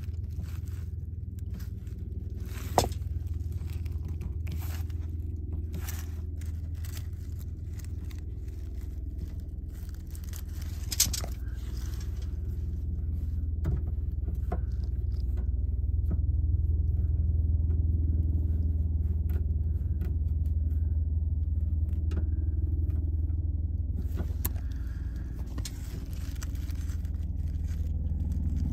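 Flare nut on a copper LP gas line being threaded by hand onto an old steel gas pipe fitting: light metal scrapes and scattered small clicks, with two sharper clicks, one about three seconds in and one about eleven seconds in, over a steady low rumble.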